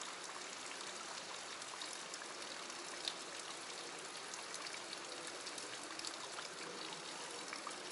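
Steady hiss of trickling, running water, with a few faint scattered ticks.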